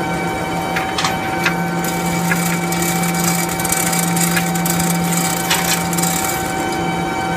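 A steady mechanical hum with several fixed tones, over which the chain of a chain hoist gives a few sharp metallic clinks as it is handled.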